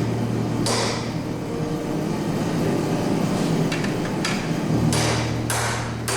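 Hammer blows on steel at the anvil during forging: a handful of sharp strikes at uneven spacing, one near the start and a closer run in the second half, over a steady low hum.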